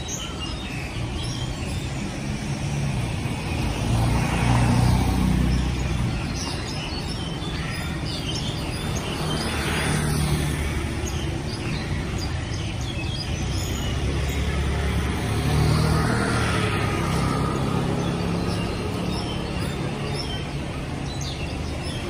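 A flock of birds chirping and twittering in the trees, with short high calls throughout. Cars pass underneath; their low engine and tyre noise swells and is loudest about five seconds in and again around sixteen seconds.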